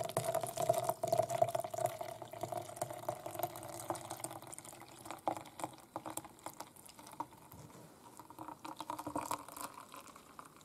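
Coffee-milk and egg flan mixture poured in a steady stream from a saucepan through a fine mesh strainer into a plastic jug, splashing and trickling as the custard is strained. The pour is louder for the first few seconds, then settles quieter.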